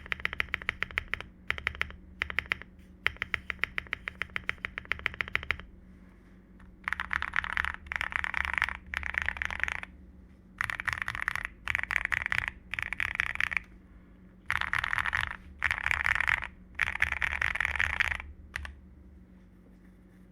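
Akko MOD005 custom mechanical keyboard, with an aluminium plate and lubed Akko CS Jelly Black switches, being typed on. First comes a quick run of separate keystrokes, then after a pause several dense bursts of rapid key presses lasting a second or two each, which stop shortly before the end.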